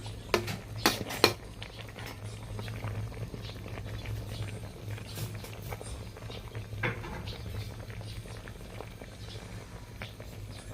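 Pot of tom som pla (Thai sour fish soup) bubbling at the boil, with a steady low hum beneath. A few sharp clinks of utensils on the pot come in the first second or so, and one more about seven seconds in.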